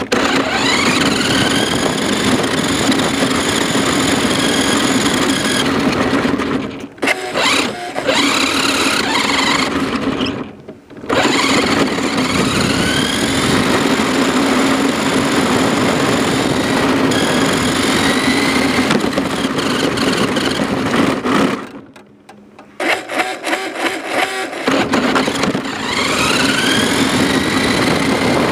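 Remote-control car's motor whining as it drives, heard from a camera taped to the car, with rushing noise underneath. The whine rises in pitch each time the car speeds off again. It cuts out briefly about a third of the way in, and for about two seconds near three-quarters of the way through.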